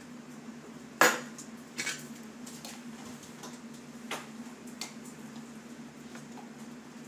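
Kitchenware being handled: a sharp knock about a second in, a smaller one just under a second later, then a few light clicks, over a faint steady hum.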